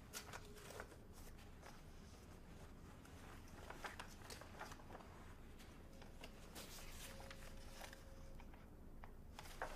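Near silence: quiet room tone with a faint steady hum and a few faint scattered clicks and rustles.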